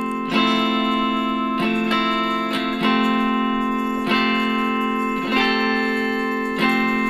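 Background music: sustained chords, with a new chord struck about every second and a quarter.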